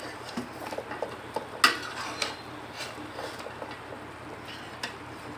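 Metal spoon stirring beef pieces in a large stainless steel pot, scraping and knocking against the pot. There are a few sharp clinks, the loudest about one and a half seconds in.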